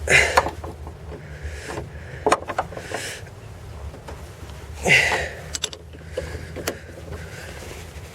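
Hand tools working the nut on a VAZ-2111 front strut's top mount: scattered sharp clicks and knocks of tool on metal, with a couple of louder brief rustling scrapes, over a steady low hum.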